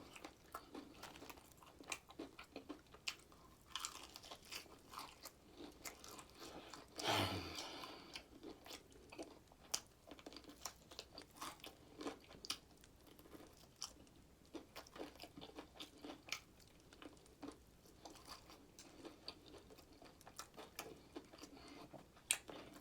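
Close-mic'd chewing and biting into crispy fried chicken: a steady run of small crunches and wet mouth clicks, with one louder, longer stretch about seven seconds in.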